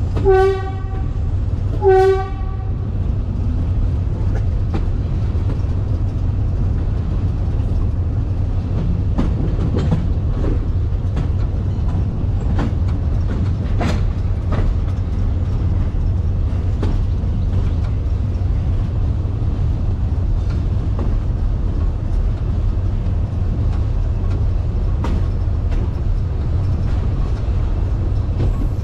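A GE D10E-250 diesel-electric locomotive sounds two short horn blasts about two seconds apart at the start. Then comes the steady low rumble of the locomotive running along, with occasional faint clicks from the track.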